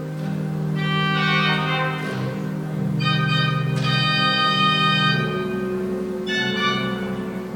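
Organ music: held chords that change every second or two.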